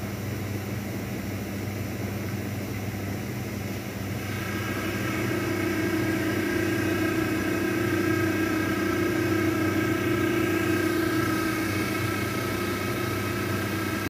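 Daewoo DWD-FT1013 front-loading washing machine in its 1000 rpm spin, with a steady low hum from the drum and motor. About four seconds in, a higher motor whine sets in and the machine gets louder, holding steady from then on.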